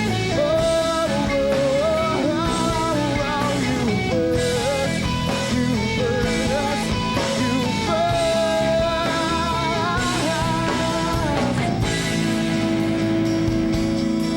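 Rock band playing live, with a lead singer holding long, wavering notes over guitar, bass and drums. Near the end the voice stops and the guitar carries on.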